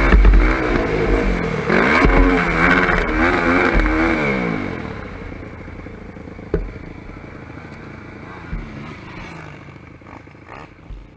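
Sport ATV engine heard onboard, revving up and down hard over the track for the first few seconds, then dropping away to a much quieter note. Several single knocks and a rattle of the quad over rough ground come later.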